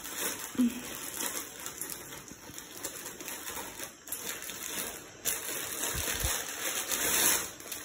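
Parcel packaging rustling and crinkling unevenly as it is torn open and unwrapped.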